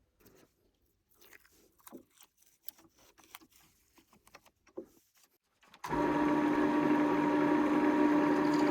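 Light clicks and knocks of small things being handled. About six seconds in, a steady motor hum starts abruptly and holds one even pitch.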